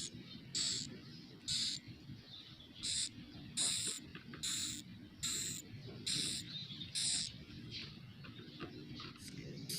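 Swiftlet chicks calling from their nests: short, hissing high calls repeating about once a second, over a steady low hum.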